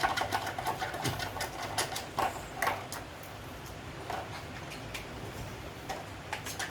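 A rapid run of small clicks and clattering knocks, densest in the first three seconds, then a few scattered knocks.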